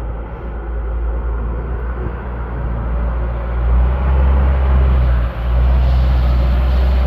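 Wind buffeting the microphone: a heavy, uneven low rumble that grows stronger about halfway through.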